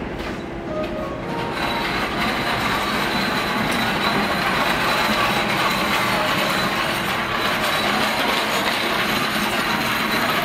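Hankyu electric train running through the station: a steady rumble of wheels on rail that grows louder about two seconds in and stays loud, with a thin, high, steady squeal from the wheels on top.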